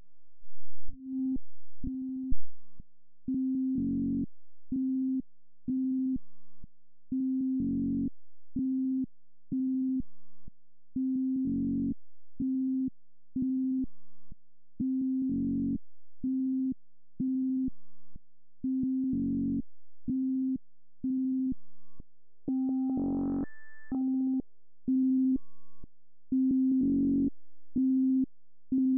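Software modular synthesizer (VCV Rack patch) playing a repetitive pattern: short beeping notes on one low pitch, a little over one a second, with every few notes held longer and fuller. Near the middle of the last third one note turns suddenly brighter. There are a couple of louder hits in the first few seconds.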